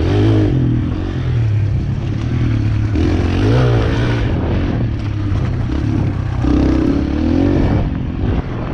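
Small dirt bike engine running, its revs rising and falling every second or two.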